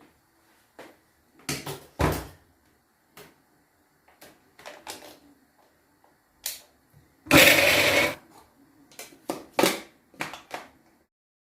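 Kitchen handling sounds: a string of short knocks and clicks from utensils and containers being moved, with one louder rushing noise just under a second long about seven seconds in.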